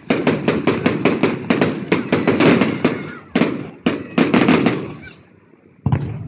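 Fireworks going off in a rapid string of sharp cracks and bangs, several a second, thinning out after about four seconds, with one more bang near the end.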